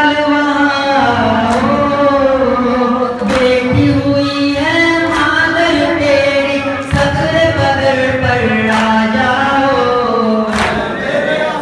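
A noha, the Shia lament, sung without instruments by a male reciter over a microphone, with a group of men's voices joining in. A sharp beat lands every second and a half to two seconds, the mourners' chest-beating (matam) keeping time.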